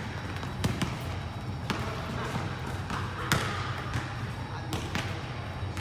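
Basketball bouncing on the court during a pickup game, about half a dozen sharp, irregularly spaced bounces with an echo.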